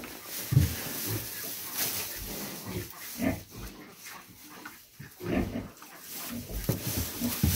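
A heavily pregnant sow, close to farrowing, gives a few short, low grunts a second or two apart as she roots her snout through straw bedding, with the straw rustling in between.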